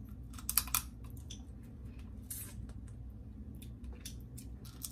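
Blue crab shells cracking and being picked apart by hand: a quick cluster of sharp cracks about half a second in, then scattered smaller clicks and crackles.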